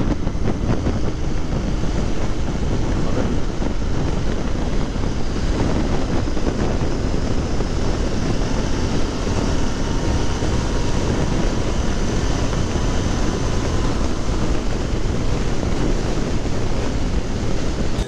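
Steady rush of wind on the camera microphone of a Royal Enfield Continental GT 650 cruising at highway speed in sixth gear, with the motorcycle's engine and road noise mixed in.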